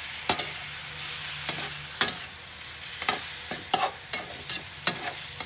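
Chicken pieces sizzling in hot oil in a metal wok while a metal slotted spatula stirs them, knocking and scraping against the pan about ten times at an uneven pace.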